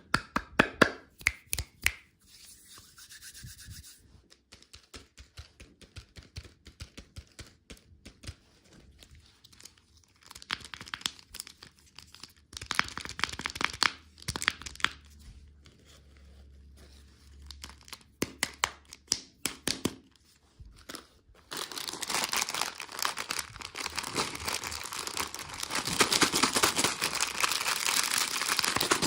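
Candy packaging being unwrapped by hand: wrappers tearing and crinkling in short spells of crackling, which turn into continuous dense crinkling for the last several seconds.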